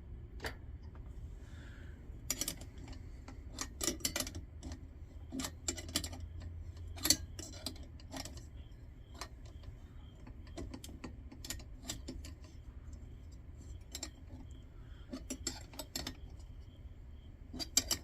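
Small metal lantern parts clinking and tapping against each other as they are handled and fitted together: scattered light clicks, with a low steady hum underneath.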